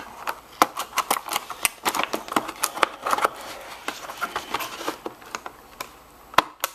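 Stiff clear plastic clamshell packaging crackling and snapping as it is bent and pried open by hand. The snaps come quick and irregular, thin out past the middle, and end in one sharp snap near the end.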